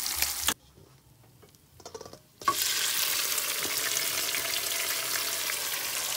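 Hot oil sizzling as food fries: first under a whole fish in a pan, then, after a gap of about two seconds, as chopped onion, scallion and pepper fry in a pot, stirred with a fork. A sharp click comes as the sizzling resumes.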